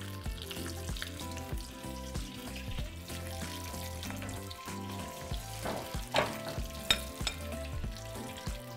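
Rolled taquitos frying in hot oil in a frying pan, a steady sizzle and crackle, with two sharp clicks about a second apart past the middle. Soft background music runs underneath.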